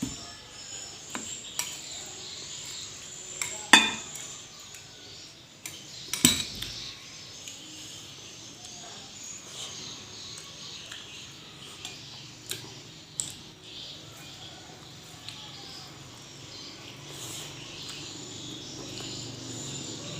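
Cutlery and dishes clinking during a meal: scattered sharp clinks against a plate, the two loudest about four and six seconds in, over a steady high hiss.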